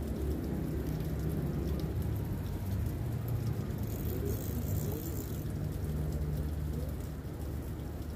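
Steady outdoor background noise: a low rumble under a hiss, with a brief faint high hiss about halfway through.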